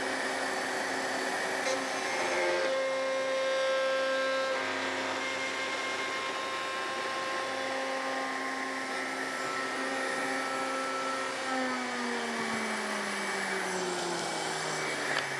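Router in a router table running while a plywood insert is pushed over the bit to cut a notch. About eleven seconds in it is switched off and winds down, its pitch falling steadily. A dust extractor runs along with it.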